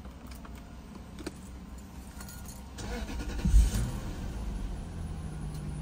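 Lexus engine cold-started after sitting overnight. A few light key clicks come first, then the starter cranks briefly about three seconds in and the engine catches and settles into a steady fast idle, smooth and quiet.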